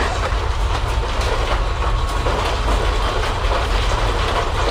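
An office building shaking in a strong earthquake: a loud, continuous low rumble with dense rattling and clattering of desks, fittings and loose objects.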